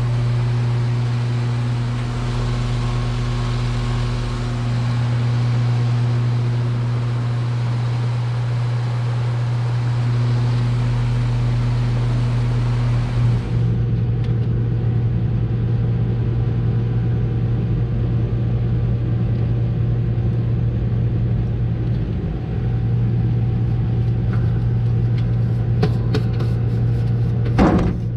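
Heat pump outdoor unit running, with a steady low hum and the air noise of its newly replaced condenser fan motor. The new fan motor runs noticeably quiet, with no bearing squeal. Near the end, a brief clatter of the sheet-metal service panel being handled.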